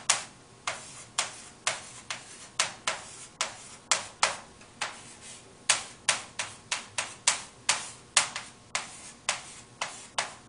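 Chalk tapping and knocking against a chalkboard as numbers and symbols are written: a run of sharp, irregular clicks, about two a second.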